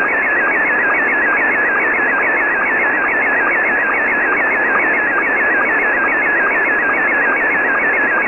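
Slow-scan TV (SSTV, Scottie 1 mode) image signal on shortwave single sideband: a warbling tone, repeating several times a second as each scan line is sent, with a short low sync blip between lines. It rides on heavy band static because the signal is very weak and noisy.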